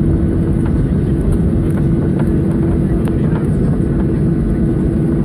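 Cabin noise inside a Boeing 737-800 rolling on the ground: a steady, loud low rumble from the wheels and airframe, with the CFM56-7B engines holding a steady hum. A few faint clicks come through now and then.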